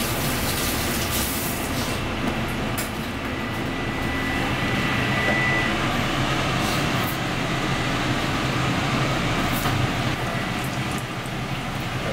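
Steady commercial-kitchen noise, with hot oil sizzling and bubbling in a deep fryer as flour-dusted devil stinger pieces are dropped in for tempura, mostly in the second half.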